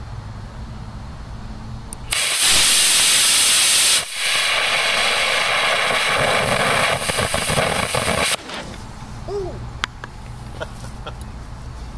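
Estes D12-5 black-powder model rocket motor firing on a static thrust stand. It starts with a sudden loud rushing hiss about two seconds in, loudest for its first couple of seconds, then settles to a slightly quieter steady hiss. The hiss cuts off sharply after about six seconds in all, as the propellant burns out.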